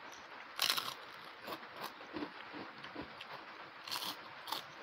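Eating sounds close to a lapel microphone: chewing and mouth sounds of rice and fried fish eaten by hand, with a few short sharp smacks or crunches, the loudest about half a second in and two more near the end.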